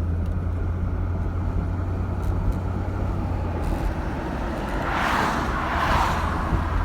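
Road noise inside a moving car: a steady low rumble from the engine and tyres, with a rush of noise that swells and fades about five seconds in.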